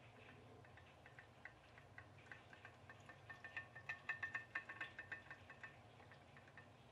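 Home-made pop-pop boat, an aluminium mackerel tin with a coiled aluminium tube boiler heated by a tea light, running with a faint rapid ticking that grows louder for a couple of seconds midway.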